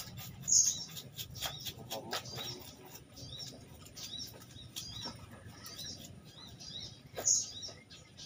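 Kitchen knife chopping on a round wooden log chopping block: an irregular run of sharp knocks. Small birds chirp again and again behind it.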